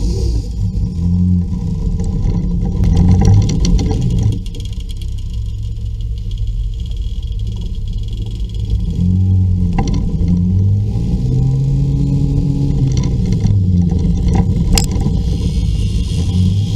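Scooter engines running as a group of scooters rides off along the road, heard from a scooter riding among them.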